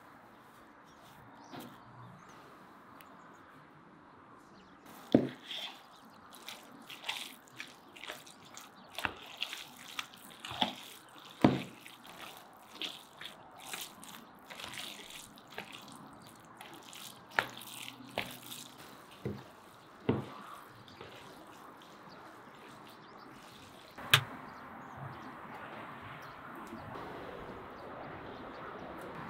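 Minced pike cutlet mixture being mixed in a plastic bowl: irregular wet squelches and slaps, a few of them much louder. Near the end a single sharp click, then a steady faint hiss.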